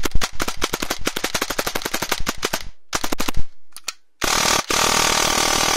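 Airsoft AEG gearbox with a 3D-printed piston and double sector gear cycling under a stress test that forces premature piston engagement (PME). A dense run of rapid mechanical clacks stops about two and a half seconds in, a short burst follows, and then after a pause a continuous fast buzz of full-auto cycling takes over.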